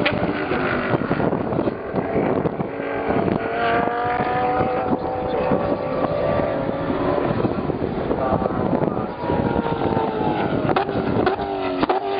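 GT race car engines running hard at speed, one car's pitch rising slowly as it accelerates over several seconds, with more cars' engines coming in near the end.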